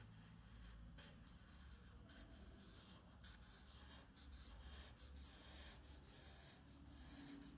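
A marker pen's felt tip scratching on paper in a quick string of short strokes, about two a second, as hair strokes are drawn along a beard outline. Faint.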